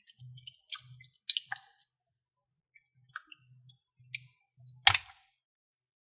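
Slime being squished and worked by hand: scattered small wet clicks and crackles, with one louder, sharper sound just before five seconds in.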